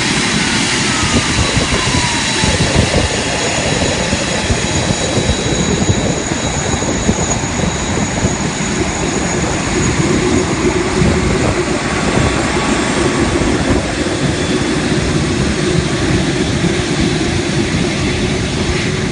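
Airbus A380's four turbofan engines running at taxi power as the airliner rolls past: a steady jet roar with a thin high turbine whine over it.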